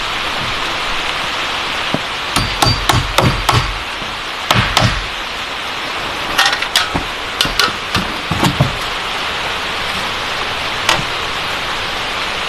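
Hammer blows, probably driving nails, in short runs of several strikes with pauses between and a last single blow near the end, over a steady hiss of rain.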